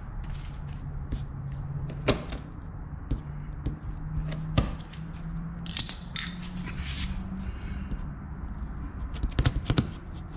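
Hand tools clicking against concrete and cardboard: a few separate sharp clicks, a scratchy rustle about six seconds in, and a quick run of clicks near the end as pliers pry staples out of a cardboard shipping box.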